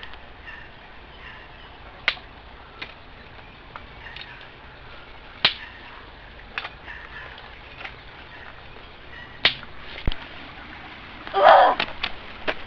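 Footsteps in woodland undergrowth: scattered sharp snaps of twigs and brush, with a louder rustling crash of brush near the end.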